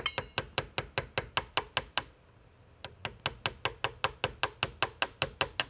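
A small 2-ounce ball-peen hammer lightly tapping a steel chisel in quick, even strokes, about five a second, chipping scabs off the end grain of a glued-in wooden block. The tapping stops for under a second about two seconds in, then picks up again at the same pace.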